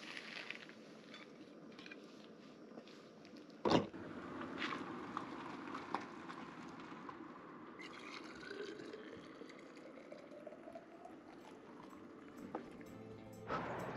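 Liquid being poured and splashing, with scattered small ticks and one sharp knock about four seconds in.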